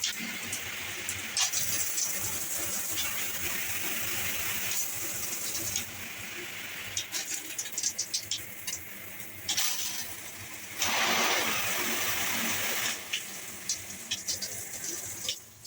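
Water spraying from a shower head in a steady hiss, with scattered splashes and clicks, growing louder for about two seconds past the middle.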